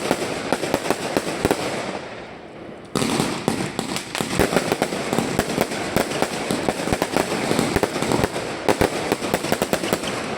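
A Salon Roger 'The Next Level' 212-shot fireworks cake (22.5 and 30 mm shots) firing a dense run of rapid bangs. It eases off briefly about two seconds in, then starts again sharply about three seconds in and keeps firing densely.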